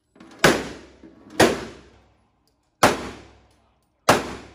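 Four pistol shots a second or so apart, each a sharp crack with a short echoing tail off the walls of an indoor shooting range.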